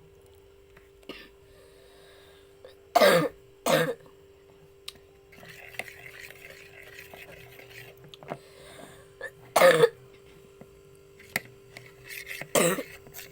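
A person coughing: two coughs close together about three seconds in, then single coughs near ten seconds and near the end. It is the cough of someone down with a cough and cold.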